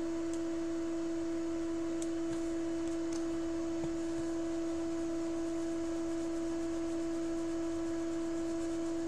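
A steady electrical whine: one unbroken pure tone of fixed pitch with a fainter overtone an octave above, at constant strength.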